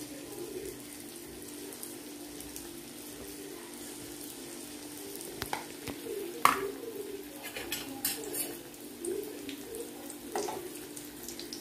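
Batter-coated chicken pieces deep-frying in hot oil in an aluminium kadai, a steady sizzle, with a few sharp clinks of a metal spoon against the pan, the loudest about halfway through.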